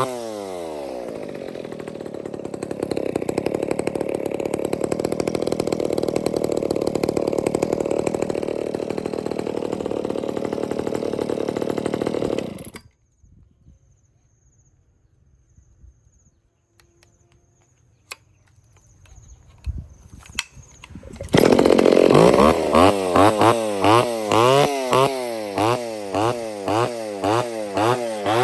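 Kioritz 302 two-stroke chainsaw engine dropping from a rev into a steady idle, then cutting out suddenly. After a few quiet seconds with a few clicks and knocks, it runs again loudly with the throttle blipped, revving up and down about twice a second.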